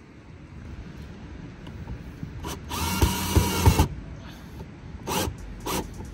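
Cordless drill-driver driving a screw up into the underside of a car's side skirt. It runs hard for about a second near the middle, with short trigger blips before and after.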